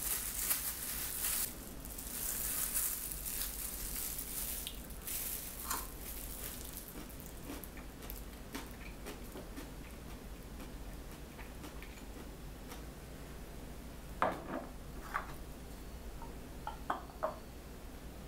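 A plastic-gloved hand mixes and squishes strips of food in red chili seasoning, with the glove crinkling; this is busiest in the first few seconds and then fades. Near the end come a few short, sharp clicks and taps.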